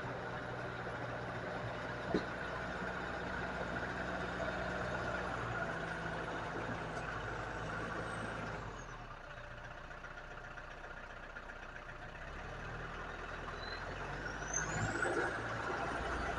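Case IH compact tractor's diesel engine running, easing off about nine seconds in and picking up again a few seconds later, with a brief rising squeal near the end.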